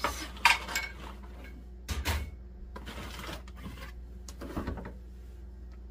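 A large plastic zip-top bag of oil-coated saltine crackers being turned over by hand: crinkling of the bag and crackers shifting inside it, most in the first second, with a soft bump about two seconds in and a little more rustling near the end.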